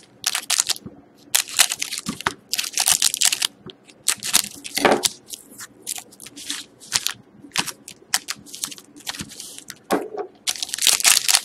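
Foil hockey card pack wrappers crinkling as they are handled and cut open with scissors, in a string of short crackly bursts.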